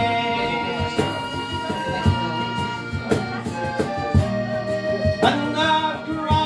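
Piano accordion playing a slow melody over a strummed acoustic guitar, with a cajón struck about once a second.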